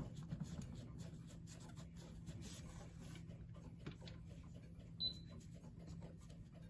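Faint handling noise: light clicks, taps and rubbing as gloved hands shift a brass-framed glass clock case on a wooden block, with one brief high squeak about five seconds in. A low steady hum runs underneath.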